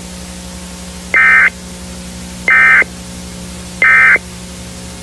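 Emergency Alert System end-of-message data bursts: three short buzzy bursts of SAME digital tones about 1.3 seconds apart, closing the alert, over a steady low hum and hiss.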